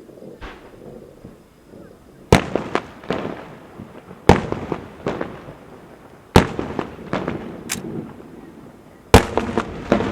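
Fireworks exploding: four loud bangs about two seconds apart, each followed by a quick run of smaller cracks and echoes.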